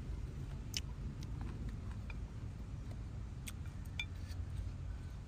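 Quiet eating at a bowl of instant noodles: a few faint clicks of chopsticks against a glass bowl, one about four seconds in with a brief ring, over a low steady rumble.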